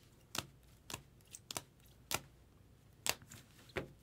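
Trading cards in rigid plastic holders clacking against one another as they are flipped through by hand: about seven or eight short, sharp clicks at irregular intervals.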